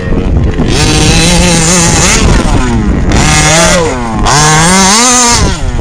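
Petrol two-stroke engine of a large-scale FG radio-controlled buggy running hard, its revs holding, dropping and rising again as the throttle is worked. It drops off briefly about half a second in and again around four seconds in, then climbs in pitch near the end.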